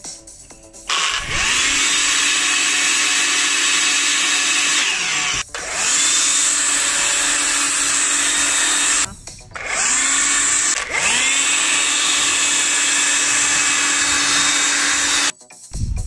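Cordless multi-tool drill driving a blower attachment, running with a steady high whine of motor and rushing air. It spins up with a rising whine about a second in, drops out briefly twice and spins up again, then stops sharply near the end.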